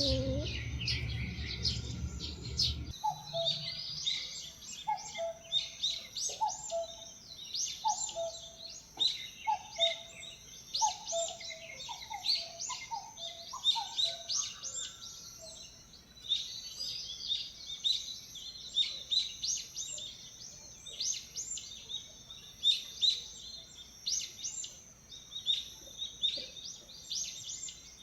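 Background music stops about three seconds in. Then many birds chirp and twitter in quick, high calls, with a lower, short, dropping call repeated about once a second through the first half.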